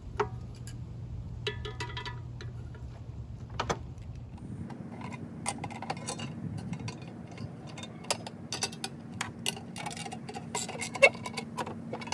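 Hand tools clicking and clinking against a thin steel No. 10 can while the stove's leg bolts are tightened with a driver and channel-lock pliers. The ticks are sparse at first and come thick and irregular from about four seconds in.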